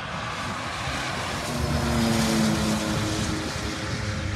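Drag cars at full throttle on a quarter-mile pass, the engine sound swelling to its loudest about two seconds in, then dropping in pitch as they go past and away down the strip.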